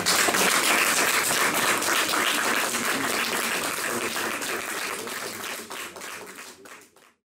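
Audience applauding, the clapping gradually thinning and fading until the sound cuts off near the end.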